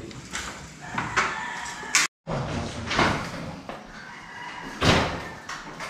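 Aluminium kitchen cabinet frames knocking and clattering as they are handled and carried, with a few separate knocks, the loudest near the end. The sound drops out completely for a moment about two seconds in.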